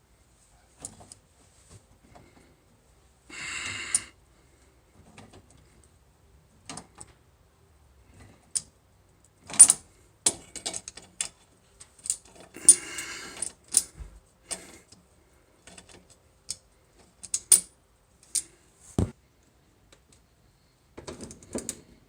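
Scattered small clicks, taps and clinks, with two brief scraping rustles, as a washing machine supply hose coupling is handled and a strainer O-ring fitted into it.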